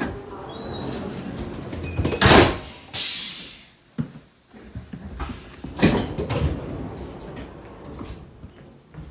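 Sliding doors of a passenger railway coach opening and closing. There is a string of loud clunks and thuds, with a short hiss about three seconds in.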